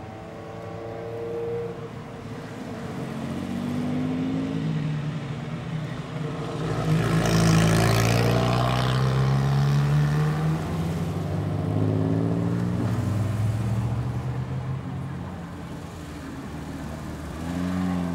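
Several classic sports cars driving past one after another, each engine rising and falling in pitch as it accelerates by. The loudest and closest pass comes about seven seconds in.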